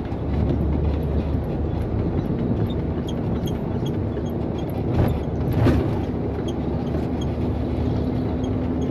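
Isuzu FVZ280 truck driving, its engine and road noise a steady low rumble heard from inside the cab, with two clunks about five and six seconds in and a steady whine that rises slightly near the end.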